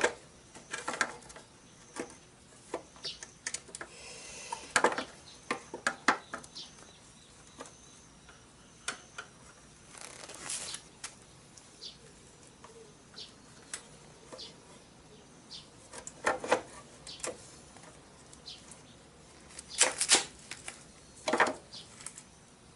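Hands working on a motorcycle's rear drive chain and small metal parts: irregular metallic clicks and clinks with some rustling, a sharp clank right at the start and two louder ones near the end.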